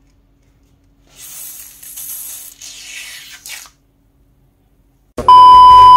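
Several short bursts of hissing noise close together, followed after a pause by a loud, steady electronic beep near the end.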